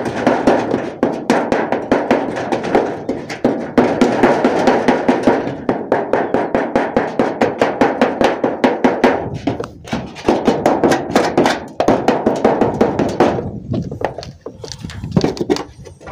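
Rough grey felt cloth rubbing and scraping against the camera microphone: a loud, continuous crackle made of many rapid scratchy clicks, thinning out about two seconds before the end.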